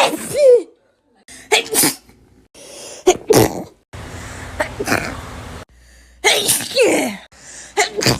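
People sneezing, about five sneezes one after another, each a sudden loud burst, several with a pitched tail that falls away.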